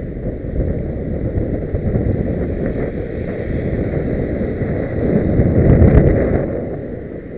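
Wind buffeting a bike-mounted camera's microphone while riding, a steady low rush. About five seconds in, a passing truck's engine and tyres swell louder, peak around six seconds, then fade.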